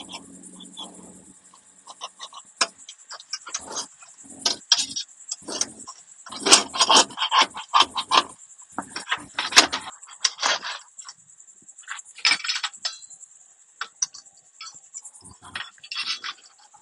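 Metal knife and spatula scraping and clinking against a stainless steel pan, prying up a pan pizza whose crust is stuck to the bottom: irregular scrapes and clicks, busiest in the middle. Crickets chirp steadily in the background.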